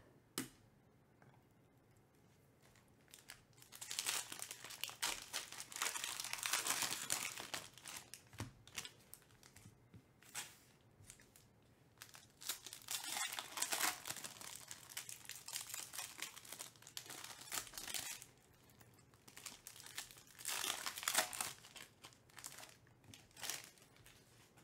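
Trading card pack wrappers crinkling and tearing as packs are cut and torn open by hand, in three stretches of a couple of seconds each with light handling clicks between.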